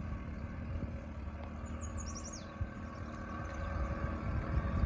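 Outboard motor running at low speed with a steady low rumble, as the boat moves a floating dock across the water. A bird chirps briefly about two seconds in.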